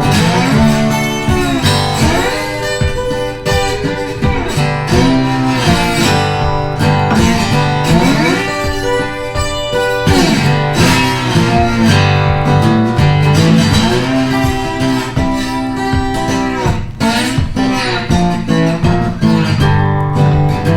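Background music led by guitar, with sliding notes over a steady bass.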